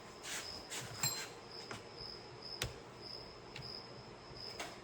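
Faint handling sounds as the Husqvarna 445 chainsaw's bar-oil tank cap is opened: a few light clicks and scrapes, with one sharp click about halfway. Behind them an insect chirps steadily at a high pitch.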